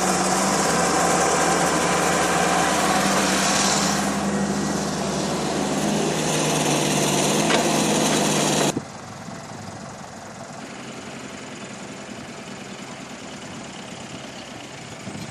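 A motor running steadily. It is loud for about nine seconds, then drops suddenly to a much quieter steady run.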